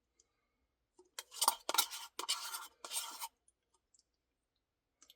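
Spoon scraping inside a Blizzard ice cream cup: about four short scraping strokes about a second in, over two seconds or so.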